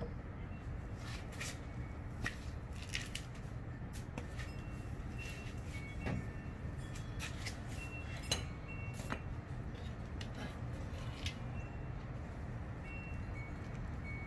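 Scattered metal clicks and taps, some ringing briefly, as bolts and a ratchet are handled and set down around a Nissan VG33 cylinder head, over a steady low background rumble.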